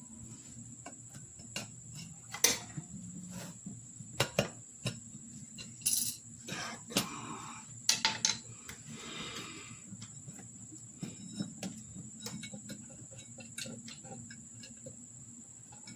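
Scattered metal clicks, taps and short scrapes of hand tools levering a riding lawnmower tire onto its steel rim.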